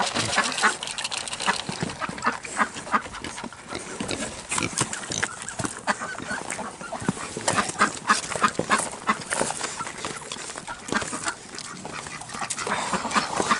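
Kunekune pigs eating feed, a rapid irregular run of wet smacking and crunching chews.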